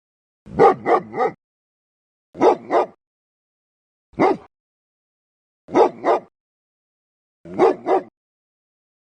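A dog barking in short bursts of one to three barks, five bursts about every one and a half to two seconds.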